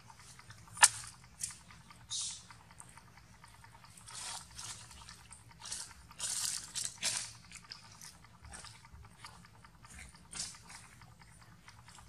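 A long-tailed macaque chewing and biting food: irregular crisp crunches and clicks, the loudest a sharp click about a second in, with a busier run of crunches a little past the middle.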